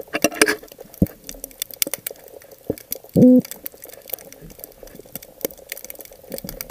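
Underwater recording of a toadfish calling: a short, low, pitched hum with overtones a little over three seconds in, the loudest sound, over a constant crackle of clicks and a faint steady hum.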